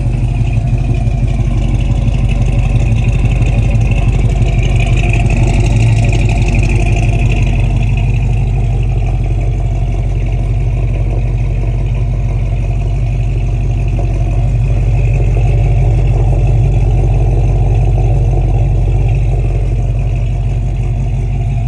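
Chevrolet Chevelle's engine and exhaust running steadily on the move, a loud, deep, continuous drone.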